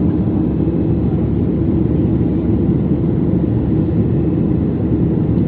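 Steady jet airliner cabin noise heard from a window seat: the engines and airflow making an even, unbroken low noise.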